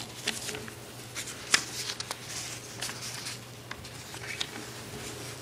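Papers rustling and small desk clicks and knocks over a steady low hum, with one sharper click about a second and a half in, as counsel leafs through his papers looking for missing pages.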